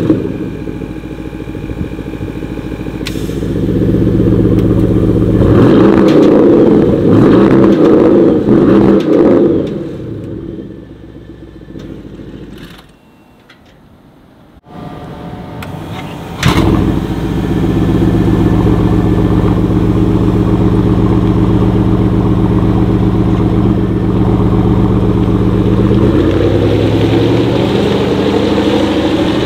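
Porsche Cayenne Turbo E-Hybrid's 4.0-litre V8 through its titanium sports exhaust, blipped and revved several times, then dying away to a quiet spell. About halfway through the engine starts again with a sudden loud flare and settles into a steady idle. Near the end the pitch rises as the car pulls away.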